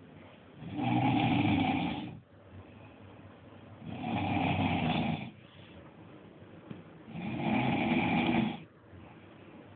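A person snoring loudly: three long snores about three seconds apart, with quieter breathing between them.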